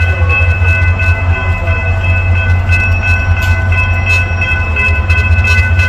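SunRail diesel commuter train approaching: a steady heavy low rumble with several high warning tones held over it and scattered clicks.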